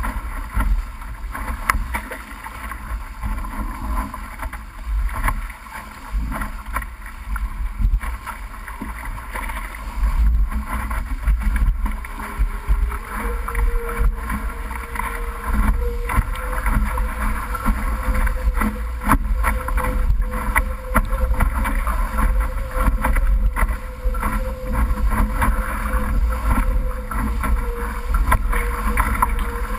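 D-One sailing dinghy under way, heard from a camera on its bowsprit: wind buffets the microphone with a heavy low rumble while water rushes past the hull, with frequent short knocks and splashes. A faint steady hum comes in about halfway through.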